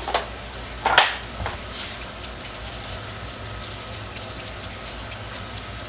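Kitchen handling noise: one sharp knock about a second in, with a couple of lighter taps around it, over a steady low hum.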